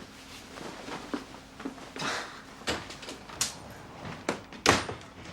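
A few light knocks and movement sounds, then a door shut hard, a sharp bang about three-quarters of the way in.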